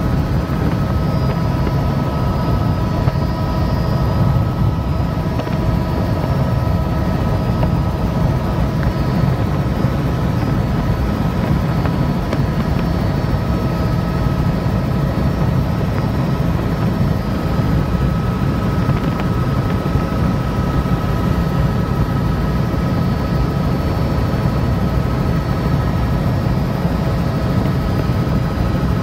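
Helicopter in flight heard from on board: a steady, loud drone of rotor and engine, with a few steady high tones running over it.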